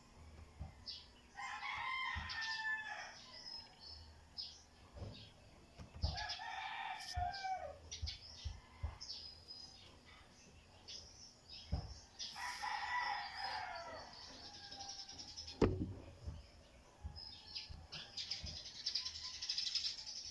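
Birds calling: three long calls about four to six seconds apart, each lasting about a second and a half, with short high chirps in between and a sharp knock near the middle.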